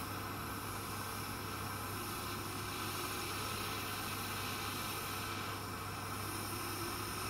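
Steady hiss of a mini flame gas soldering torch burning with a blue flame, with a faint low hum underneath.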